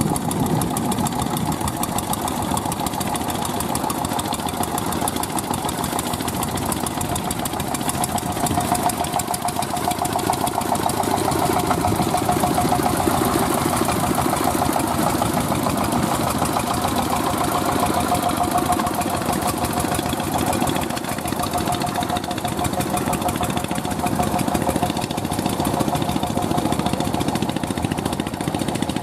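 Single-cylinder diesel engine of a mini two-wheel paddy tractor running steadily under load as it drags a levelling bar through flooded mud. It grows louder midway as the machine passes close, then eases off.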